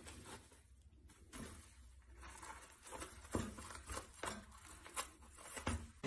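A cat pawing and biting at a toilet paper roll: faint paper rustling with a few sharp light taps, spaced roughly a second apart in the second half.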